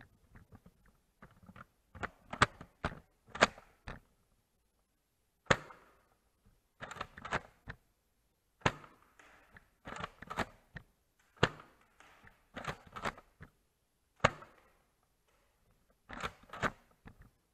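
Nerf blasters being primed and fired: sharp plastic clacks and snaps, some single and some in quick clusters of two to four.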